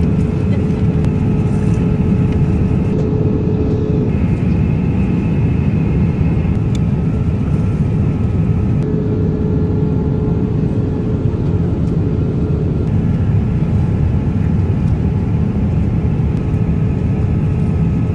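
Steady low rumble of jet airliner cabin noise, with a faint steady hum over it.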